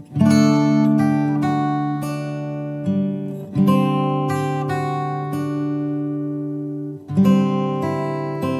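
Background music on acoustic guitar: chords strummed and left to ring, with a fresh strong strum roughly every three and a half seconds.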